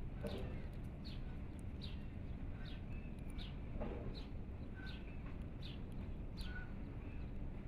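A bird calling over and over: short chirps falling in pitch, a little over one a second, with a few fainter, lower whistled notes between them, over steady outdoor background noise.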